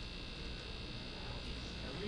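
Quiet room tone of a lecture hall: a steady hiss and low hum.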